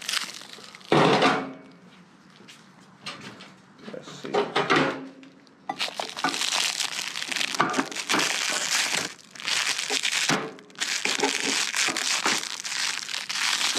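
Clear plastic packing wrap crinkling and tearing as it is pulled off a newly unboxed part, in long rustling stretches, with a thump about a second in.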